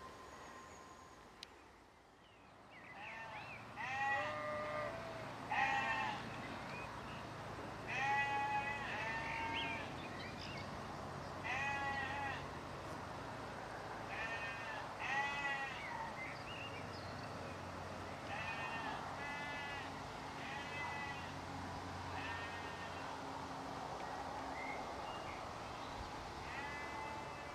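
Several sheep bleating. A call, or a few overlapping calls at different pitches, comes every couple of seconds, and the calls thin out after about twenty seconds, with one more near the end.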